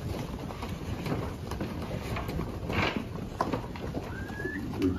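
Hooves of Nelore cattle clattering and shuffling irregularly as the herd moves through the corral, with a short high whistle-like tone near the end.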